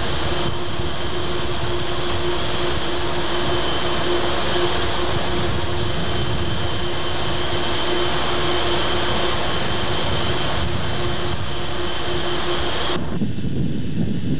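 Steady roar of wind and machinery aboard a ship under way at sea, with a constant hum over it. About thirteen seconds in, the high part cuts out abruptly, leaving a lower rumble.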